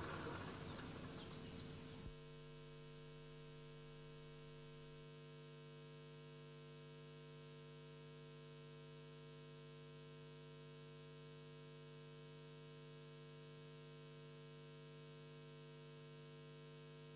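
Near silence with a faint, steady electrical hum, after the film's soundtrack fades and cuts off about two seconds in.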